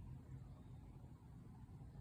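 Near silence: a faint, steady low background rumble.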